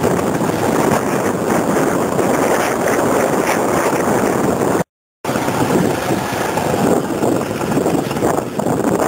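Gusty storm wind buffeting the microphone of a moving motorbike, mixed with traffic and engine noise, as a steady loud rush. The sound cuts out for a fraction of a second about five seconds in.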